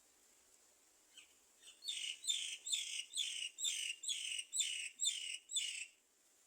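Bird calling: a quick run of about nine short, raspy, high-pitched calls, roughly two a second, starting about a second in.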